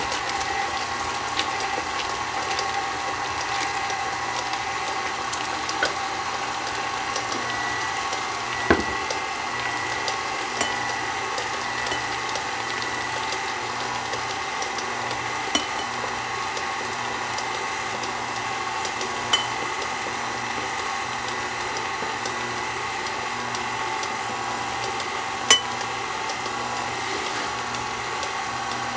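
Electric stand mixer running steadily with its flat beater churning a thick batter as beaten egg whites are mixed in, a constant motor hum with a few sharp clicks now and then.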